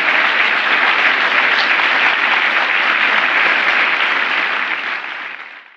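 Large audience applauding: dense, steady clapping that fades out over the last second.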